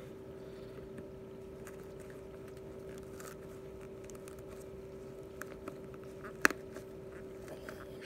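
Worn Salomon trail running shoe handled and flexed in the hands: soft rubbing and a few light clicks, with one sharp click about six and a half seconds in, over a steady low hum.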